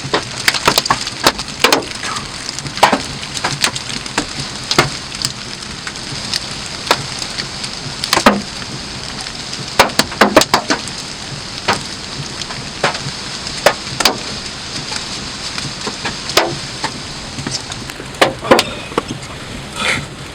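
Large hailstones striking a vehicle's roof and windows as sharp, irregular cracks, over a steady hiss of rain.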